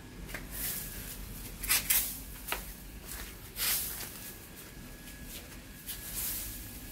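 Footsteps scuffing along a dirt and grass path, a few irregular steps and rustles.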